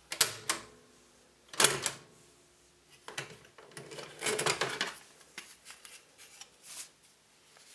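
Palladium cassette recorder's stop/eject key pressed with a click, then a loud clack as the cassette door springs open. The tape cassette rattles in the deck as it is pulled out and handled, followed by a few lighter clicks.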